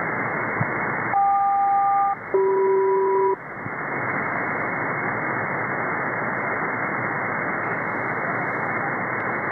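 Shortwave receiver tuned to the 5616 kHz North Atlantic aeronautical frequency, giving steady static hiss. About a second in, a SELCAL call to an aircraft sounds: two one-second bursts, each of two steady tones at once, louder than the static and separated by a brief gap.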